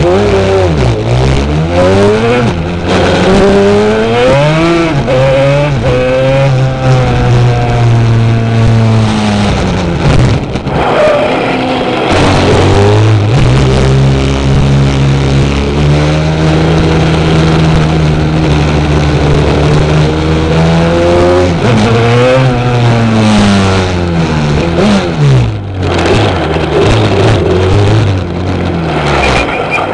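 Racing quad engine running hard under full throttle. Its pitch climbs and drops repeatedly as it revs up and changes gear, holds steady for several seconds in the middle, and falls away briefly twice as it slows.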